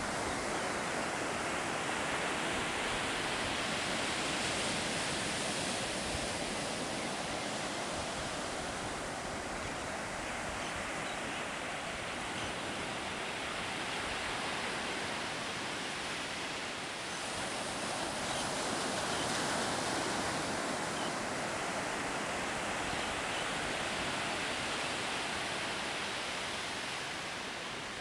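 Ocean surf breaking and washing up a sandy beach: a steady rushing that swells and eases every several seconds.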